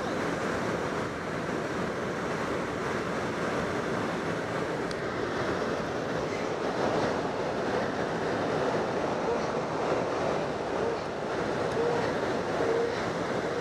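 Steady rush of airflow inside a glider's cockpit during aerotow behind a towplane. It is an even, unchanging noise.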